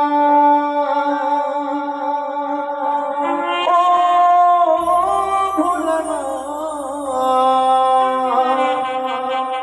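Folk band music: a melody of long held notes that slide and turn between pitches, with a low hum joining in about halfway through.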